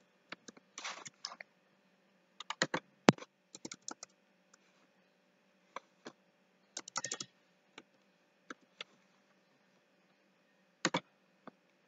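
Computer keyboard typing: short bursts of keystrokes with pauses between them, the busiest clusters about a second in, around three seconds in and around seven seconds in, and a last pair of sharp clicks near the end.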